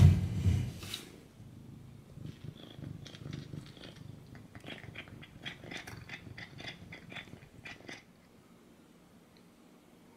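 A cat eating at floor level, a run of small crisp crunches with a low rumble under them, lasting about six seconds and stopping abruptly. A loud bump of handling noise comes near the start.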